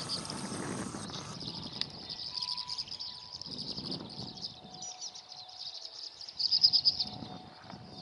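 A flock of small birds twittering overhead: a steady, high chatter of many short calls. Gusts of wind buffet the microphone, strongest at the start and again about six and a half seconds in.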